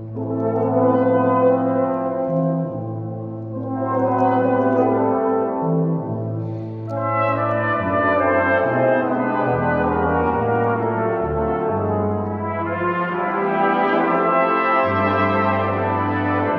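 Brass ensemble of trumpets, French horns, trombones, euphonium and tuba playing slow sustained chords over held low tuba notes, with new entries swelling in several times.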